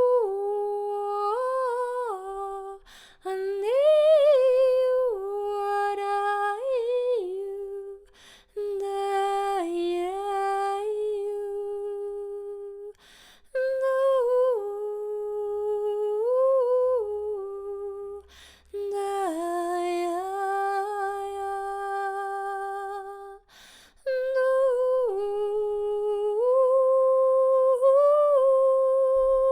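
A woman's voice humming a slow wordless melody in long held notes that slide from pitch to pitch. It comes in about six phrases with short breaths between them and ends on a long steady note.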